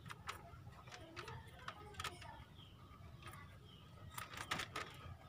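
Rabbit crunching a carrot: irregular sharp crunches in small clusters, the densest about four seconds in, over a low steady hum.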